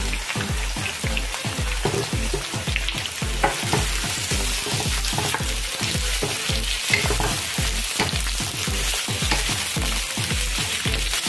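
Sliced onions and carrots frying in hot oil in an electric pot, sizzling steadily as a wooden spoon stirs and scrapes them around the pan. A regular low throb, a little over twice a second, runs underneath.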